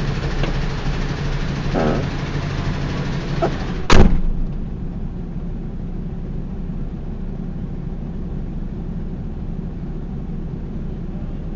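A single sharp blast about four seconds in from the explosion at the grain silos, the loudest sound, dying away over about half a second. Under it the steady hum of an idling vehicle engine, heard from inside the cab.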